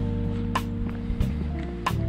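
Background music of sustained low notes with two sharp percussive hits, one about half a second in and one near the end.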